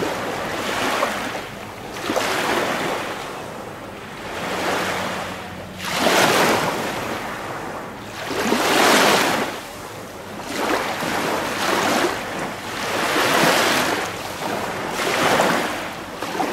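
Small waves on a reservoir washing and lapping, the water sound swelling and fading every couple of seconds.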